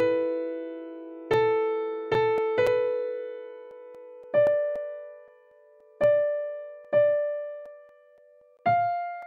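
Slow solo piano music: single notes and chords struck about once a second, each left to ring and fade, the melody stepping upward.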